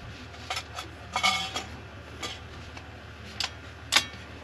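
Bolt of a bolt-action rifle, a Savage 110 Elite Precision, being worked by hand: a handful of sharp metallic clicks and clinks, with a short metallic ring about a second in and the sharpest click near the end.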